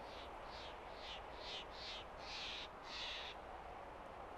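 Steady mountain wind ambience, with a run of about seven short raspy high-pitched sounds that come a little longer each time and stop about three seconds in.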